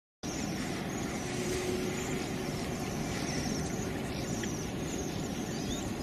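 Steady outdoor background noise that cuts in abruptly after dead silence, with a low rumble and faint high chirping at times.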